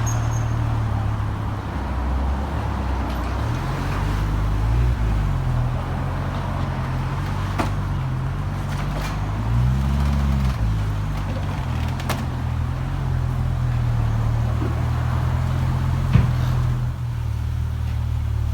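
BMW E60 M5's V10 engine running with a steady low note that rises and falls briefly about four seconds in and again about ten seconds in. A few faint clicks are also heard.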